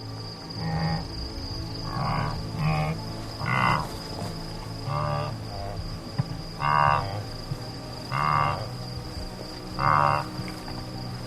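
A frog croaking about eight times, each call short and pulsed, a second or two apart. Under it runs a steady high-pitched insect trill.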